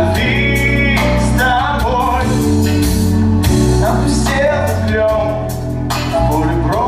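Pop song playing: a voice singing a melodic line over a steady drum beat and bass, with the vocal heard in phrases near the start and again near the end.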